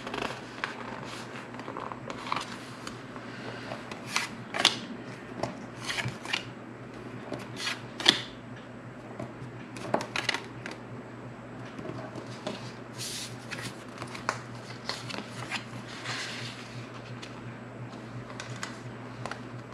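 Frosted plastic pocket pages and cards in a ring-binder planner being handled: scattered crinkles, taps and rustles as a card is slid into a pocket, over a faint steady low hum.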